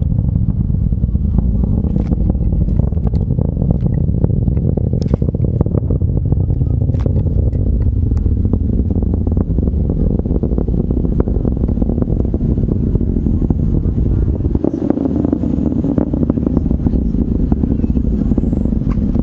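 Atlas V rocket in flight: a deep continuous rumble broken by sharp crackling pops.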